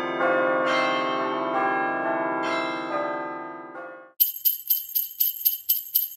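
Christmas music of pealing bells, each chord ringing out and fading away. About four seconds in it changes to jingle bells shaken in a quick rhythm, about four or five shakes a second.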